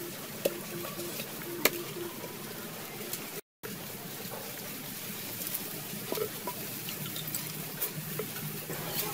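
Steady background hiss with a few sharp clicks early on; all sound cuts out for a moment about a third of the way in.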